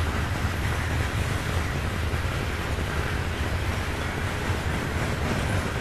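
Norfolk Southern freight train's open-top hopper cars rolling past, a steady low rumble of steel wheels on rail.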